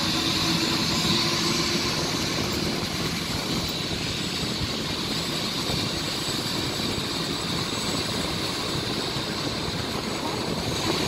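Sécurité Civile Eurocopter EC145 rescue helicopter running on the ground ahead of takeoff: its twin turbines give a steady high whine over the rotor's noise, holding an even level throughout.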